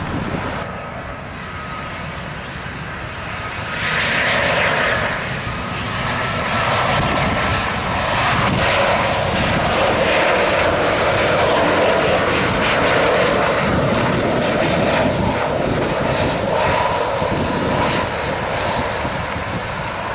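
Airliner's jet engines as a plane passes the airport: a steady rushing noise that swells about four seconds in and stays loud until near the end, with a faint high whine in the first few seconds.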